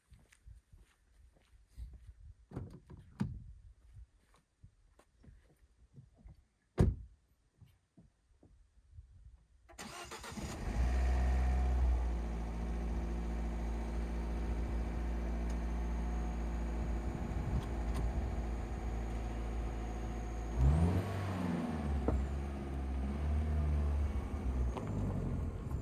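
Jeep Renegade being got into and started: a few scattered clicks and knocks, one of them sharp, then about ten seconds in the engine starts and settles into a steady idle. About twenty-one seconds in the engine note rises briefly and then settles again.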